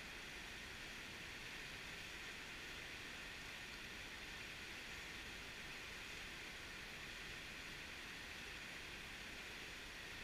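Whitewater rapids of a fast river rushing over rocks: a steady, even roar of water.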